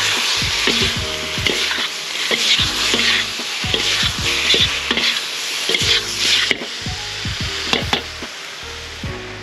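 Beef and sauce sizzling in a hot wok, thickening with freshly added cornstarch slurry, as a metal ladle and spatula stir and scrape against the pan. The sizzle eases off near the end.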